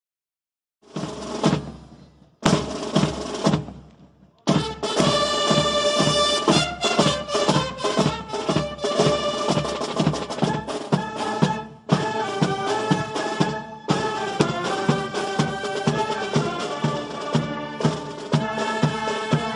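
Band music: after about a second of silence come two short bursts of drumming, each followed by a brief pause. Then, from about four seconds in, a full band plays on without a break, wind instruments holding a melody over a steady drum beat.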